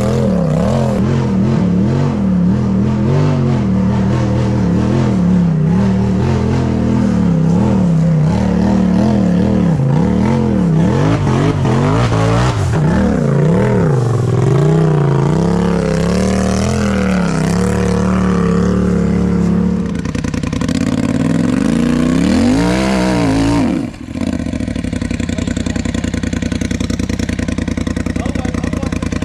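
Off-road vehicle engine revving in repeated surges, its pitch rising and falling as it works up a steep dirt hill climb. After a brief dip it settles into a steady, evenly pulsing idle for the last few seconds.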